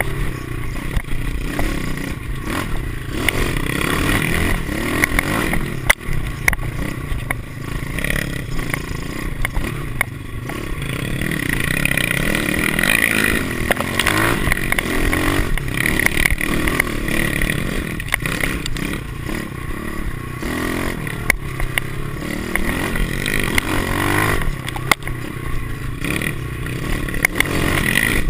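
Pit bike's small four-stroke single-cylinder engine revving up and down through the gears while riding a bumpy dirt trail, heard from a camera on the handlebars, with rattles and sharp knocks from the bike over the bumps.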